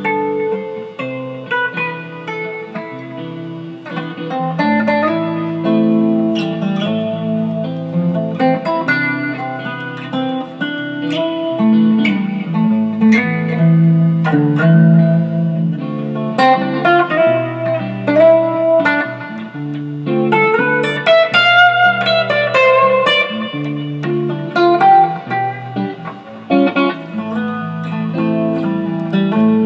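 Electric guitar being played: a continuous passage of picked single notes and chords.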